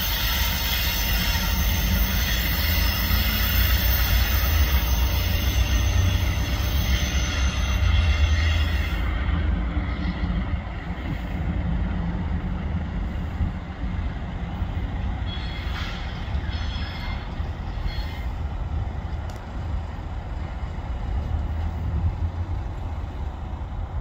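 CSX EMD GP-series ('Geep') diesel locomotive running light, its engine and wheels on the rail heard through heavy wind buffeting on the microphone. The sound eases somewhat after about ten seconds as the locomotive draws away.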